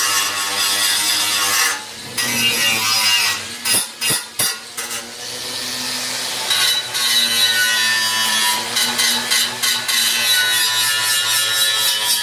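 Electric grinder scraping paint off the cut steel frame tubes, its motor hum under a harsh abrasive rasp. The tool eases off briefly about two seconds in and again around four seconds in, with a few knocks, then grinds steadily.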